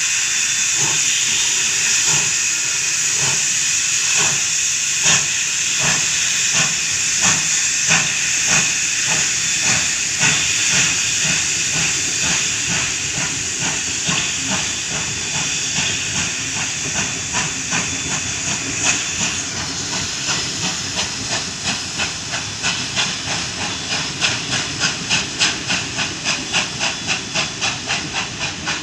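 Steam locomotive 5917, a D59 class 2-8-2, pulling away with its train: a loud, steady hiss of escaping steam over regular beats that quicken as it gathers speed. The hiss fades about two-thirds of the way through, leaving a faster, sharper rhythmic beat near the end.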